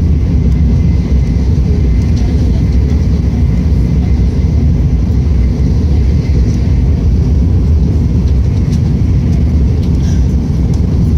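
Tokaido Shinkansen train cruising at high speed, heard from inside the passenger cabin: a steady, loud low rumble of running noise with no change.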